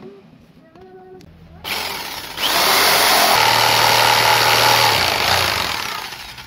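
Electric jigsaw cutting a curve through a 3.5 cm thick solid wooden board. It starts up about two seconds in, runs loudest through the middle and tails off near the end.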